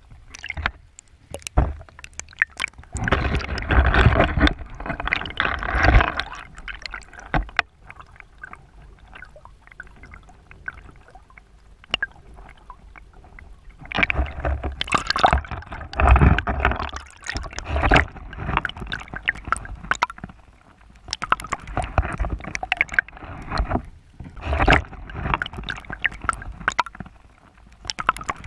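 Water sloshing and gurgling in irregular surges, heard through a microphone just under the surface of shallow water, with crackles and knocks from the moving water.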